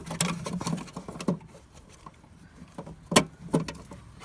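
Hands working the plastic front indicator bulb holder of a Citroen C3: scattered plastic clicks and rattles, the loudest a sharp click about three seconds in and another shortly after.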